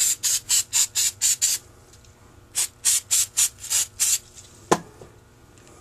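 Quick rubbing strokes, about five a second, in two runs with a pause between them, followed by a single sharp click.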